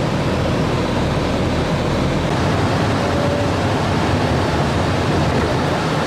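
Steady road and traffic noise of a car driving through city streets.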